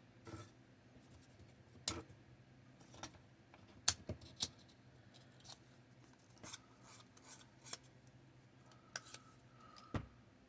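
Scattered sharp clicks and snaps of small laser-cut wooden model parts being handled, pressed out of their sheet and fitted together, with a heavier thump near the end as the camera is knocked.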